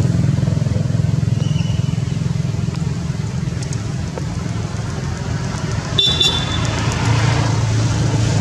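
A motor engine running steadily close by, a low hum that shifts slightly in pitch. About six seconds in there is a sharp click with a brief high beep.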